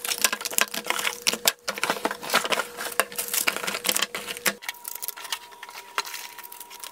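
Small cardboard product boxes being handled, shuffled and set down on a wooden desk: a dense run of quick taps, clacks and knocks. A faint steady hum runs underneath.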